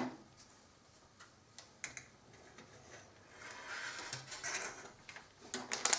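Plastic model-kit sprues being handled and laid down on a cutting mat: faint scattered clicks and taps, a soft rustle in the middle, and a quick run of clicks near the end.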